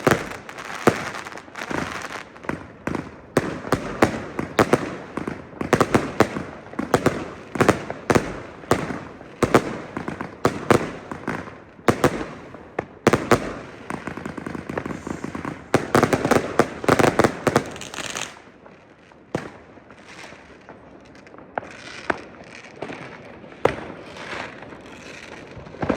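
New Year's Eve street fireworks: many rockets and firecrackers bursting, several bangs a second over constant crackle. The bursts thin out and fall quieter about two thirds of the way through, leaving scattered bangs in the distance.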